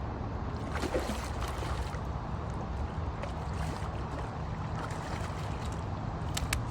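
Steady rush of river water with a low rumble underneath, and a few sharp clicks near the end.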